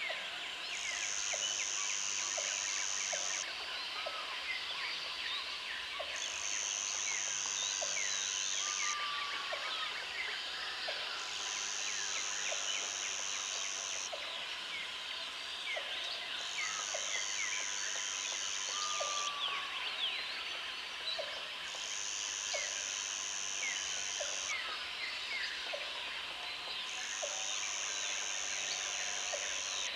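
Tropical jungle ambience from a dense chorus of insects and birds. A high buzz comes in pulses about three seconds long every five seconds or so, over thick chirping, with a short low pip about once a second and an occasional brief falling whistle.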